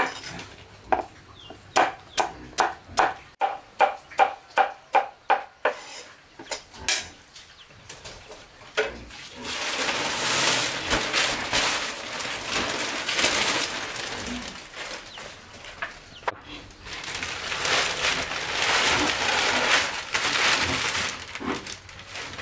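Steady chopping on a wooden board, about two to three strokes a second, for the first six seconds or so, then a long stretch of loud uneven noise from about nine seconds in.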